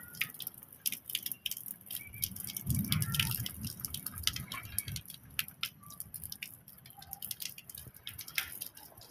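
Rain falling: raindrops pattering and dripping irregularly over a steady hiss, with a brief low rumble about three seconds in.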